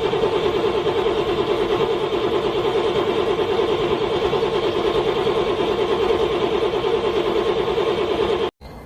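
Car engine cranking over on the starter in a fast, even rhythm without catching: a cold engine struggling to start. It cuts off suddenly near the end.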